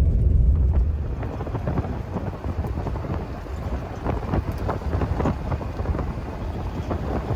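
Pickup truck carrying a truck camper driving along an unpaved road: a low rumble of the truck, quieter after about a second, with tyres crunching and popping over gravel in irregular clicks.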